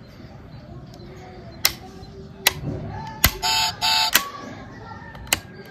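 A 1:32 diecast BMW 535i model's built-in sound module sounding two short electronic car-horn beeps about halfway through, just after a short rising tone. Several sharp plastic clicks come before, between and after, typical of the model's sound button being pressed or its parts being handled.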